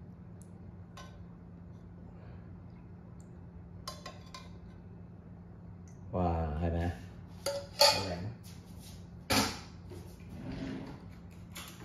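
Metal spoon clinking against a saucepan and a ceramic bowl as syrup is spooned out, a few faint clicks at first, then sharper clinks and knocks in the second half.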